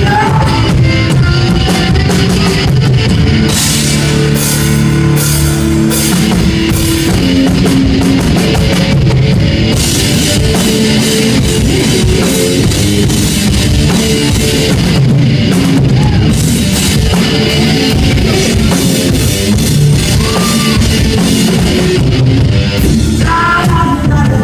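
Live rock band playing loud: distorted electric guitar over a hard-hit drum kit in an instrumental passage without singing.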